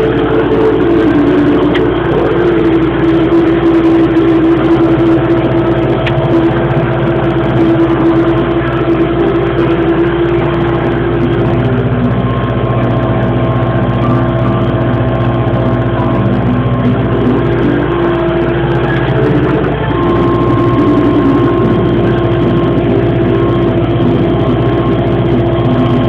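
Same Dorado tractor's diesel engine running steadily under load while pulling a plough, its note shifting slightly a couple of times.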